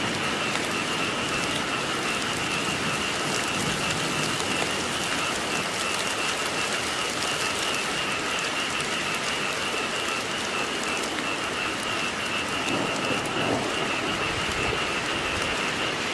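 Steady, heavy rain falling, with a continuous high-pitched chorus of frogs calling underneath.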